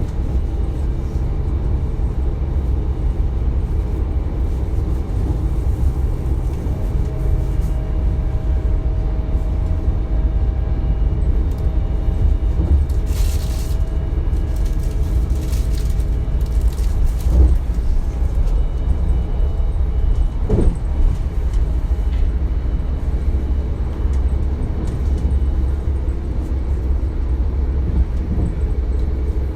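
Inside a DB Class 425 electric multiple unit under way: a steady low running rumble with faint steady tones above it. A brief hiss comes about 13 seconds in, and there are two short rising squeaks past the middle.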